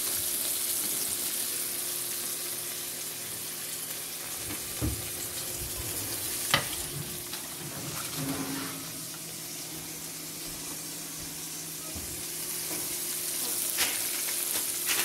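Pieces of fish frying in a bubbling sauce in a nonstick pan, a steady sizzle. A few sharp clicks break through; the loudest comes about six and a half seconds in.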